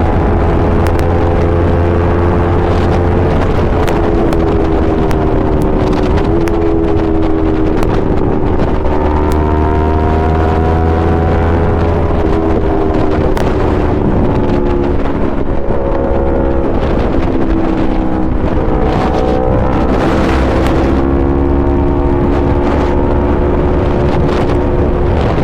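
Yamaha R3's 321 cc parallel-twin engine through an Akrapovic full exhaust system, running at fairly steady revs that drift gently up and down, with wind noise on the microphone.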